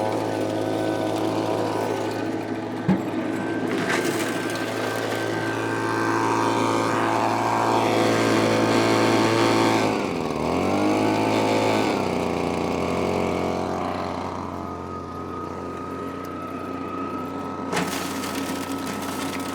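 Royal dry washer's small engine running steadily; its speed dips briefly about halfway through, then comes back up.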